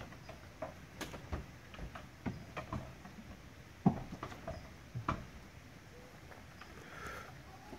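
Irregular knocks, bumps and scrapes from inside a fibreglass boat as someone works to corner a raccoon hiding under the engine cover. The sharpest knocks come about four seconds in and again about five seconds in.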